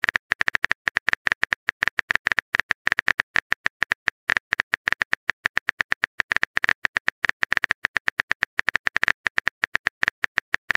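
Simulated phone keyboard tapping from a texting-story app, one short click per letter, in a fast even run of about ten a second.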